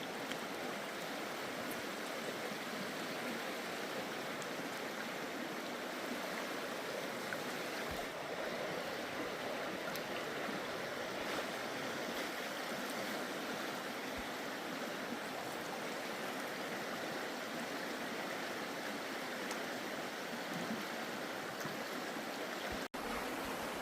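Creek water rushing steadily, an even wash of flowing-stream noise.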